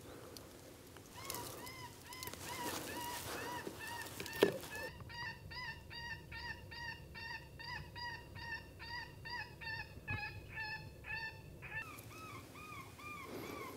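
FoxPro electronic predator call playing a baby rabbit distress sound: a steady run of short, rising-and-falling squeals, about three a second, used to lure in coyotes. A single sharp knock about four seconds in.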